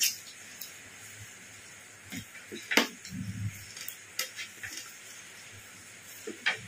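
Sounds of a meal being eaten: a few sharp clicks and smacks from mouths and plates, the loudest a little under three seconds in, with a brief low murmur just after it.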